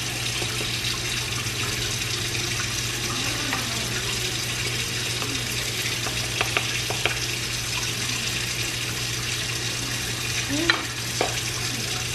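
Light clicks and knocks from a powdered baby formula tin and baby bottle being handled while a feed is made up, the sharpest knock a little before the end, over a steady hiss.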